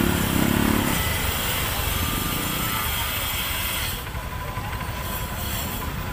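Motorcycle engine running at low revs while creeping through a crowd, a steady low rumble; a short pitched hum sits over it in the first second.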